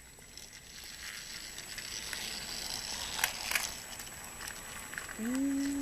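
A battery-powered toy train whirring and clattering along its plastic track, growing louder as it comes near, with two sharp clicks about three seconds in, then fading. A brief voice-like sound comes near the end.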